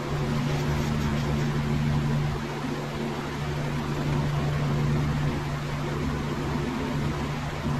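Dairy milking equipment running: a steady low mechanical hum over an even hiss.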